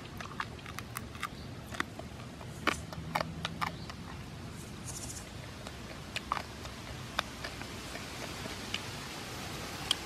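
Small irregular crackles and clicks of a grilled dove being pulled apart by hand and eaten, thickest in the first few seconds.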